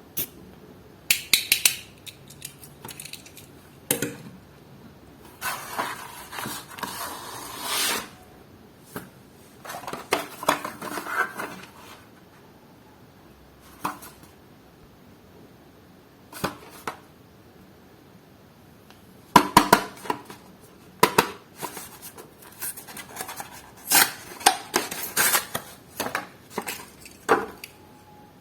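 Diecast toy cars in their plastic-and-card packaging being handled and opened: scattered sharp clicks and taps with bursts of plastic crackling, and a quiet spell in the middle.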